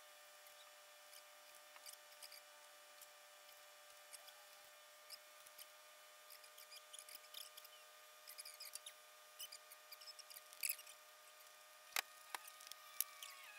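Near silence: faint scattered clicks and light taps of tools and parts being handled, with a few sharper taps near the end over a faint steady whine.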